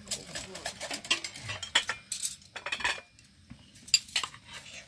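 Metal spoons clinking and scraping against a metal cooking pot and china plates as food is served. The clinks come thick and fast for about three seconds, then are sparser, with one sharp clink about four seconds in.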